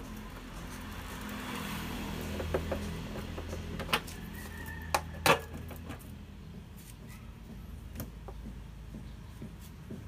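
Hand work in a car's engine bay: several separate sharp metallic clicks and knocks from a socket wrench on the engine cover's nuts and from the cover being handled, the loudest about four and five seconds in, over a low steady hum.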